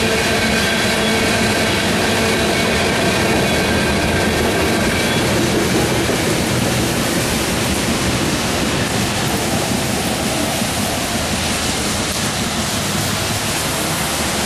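Norfolk Southern grain train's freight cars rolling past at a grade crossing, a steady rumble of wheels on rail with thin high tones that die away about six seconds in.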